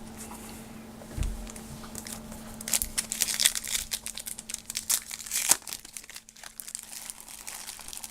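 Wrapper of a trading card pack crinkling and tearing as it is opened, in quick sharp crackles that thin out near the end. A dull thump about a second in.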